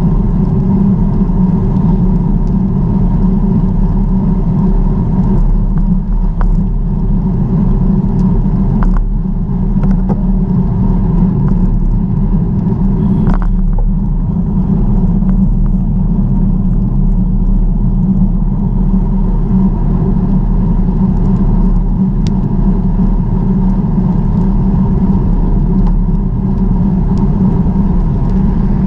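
Steady low rumble of wind and ride noise on a camera carried on a moving bicycle, with a few faint clicks.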